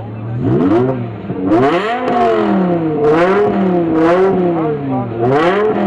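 BMW M car engine idling, then revved through about five quick throttle blips, its note climbing and dropping back each time before settling toward idle near the end.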